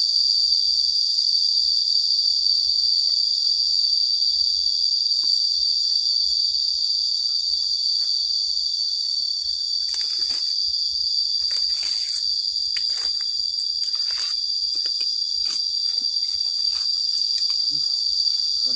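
A chorus of insects shrilling in one loud, unbroken high-pitched drone. Fainter rustling of leaves and undergrowth comes in around the middle of the stretch.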